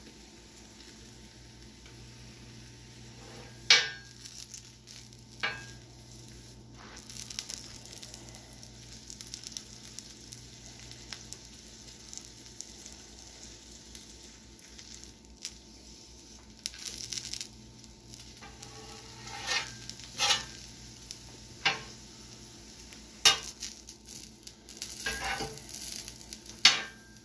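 Kielbasa sausage sizzling on a steel flat-top griddle, with sharp clacks and scrapes of metal spatulas on the griddle plate every few seconds as the sausage is held and rolled, more of them in the second half.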